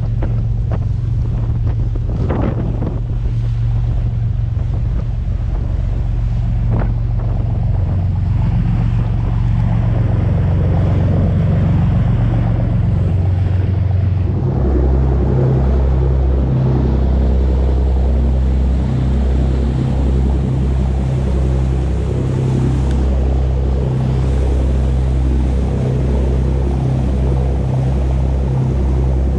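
Sportfishing boat's engine running steadily, with wind noise on the microphone. About halfway through, the engine note shifts lower.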